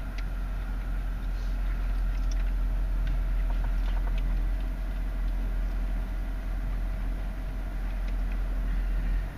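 Dodge Charger SRT-8's 6.4-litre HEMI V8 idling steadily, a low rumble heard from inside the cabin while the car waits.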